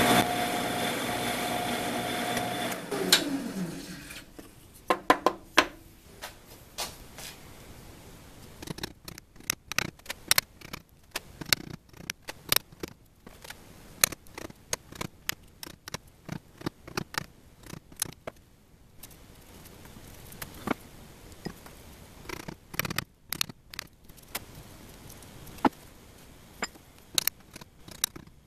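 A drill press with a counterbore bit runs steadily, then is switched off about three seconds in and spins down, its pitch falling. After that comes a long run of short, irregular clicks and scrapes as a small chisel picks and pares at the counterbored hole in an MDF block held in a bench vise.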